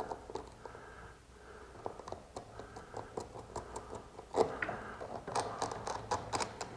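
Quiet irregular metal clicks and light scraping from the center chain adjusting nut and bracket of a BAL Accu-Slide slide-out, turned by hand to take the slack out of the drive chain. The clicks come more densely and a little louder from about four and a half seconds in.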